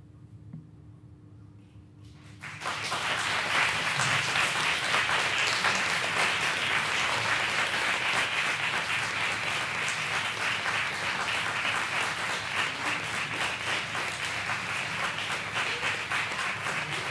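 Audience applause that breaks out about two and a half seconds in and goes on as dense, steady clapping.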